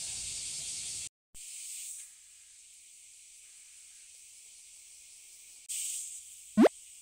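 Steady high-pitched insect drone of summer, broken by a moment of silence about a second in and quieter after it. Near the end, a brief loud rising tone.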